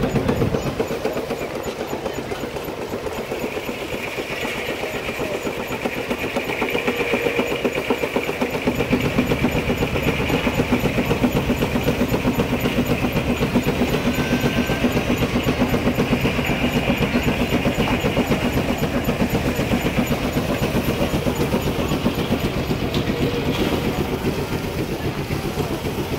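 Portable steam engine running steadily, with fast, even exhaust beats and a hiss of steam; the running grows fuller about eight seconds in.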